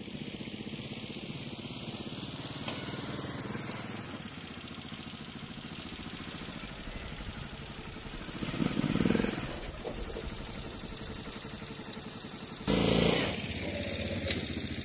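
Small motorcycle engine of a loaded cargo tricycle running as it drives past, swelling louder about nine seconds in and again near the end.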